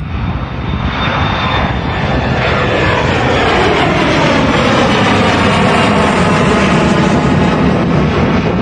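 Jet airliner passing close overhead, its engine noise building to a loud, steady roar with a sweeping, falling whoosh as it goes by.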